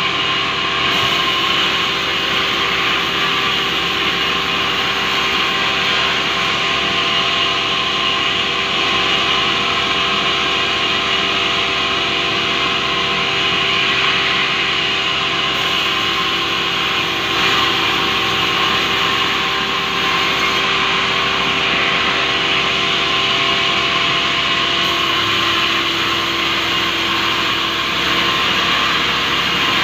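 Sawmill band saw running steadily as it splits a large rubber-wood log lengthwise: a continuous hiss and whine over a steady machine hum.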